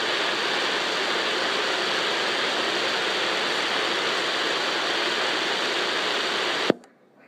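CB radio receiver static: a steady, loud hiss from the set's speaker on an open channel with no station transmitting. Near the end it is cut off by a sharp click, and the channel goes almost quiet.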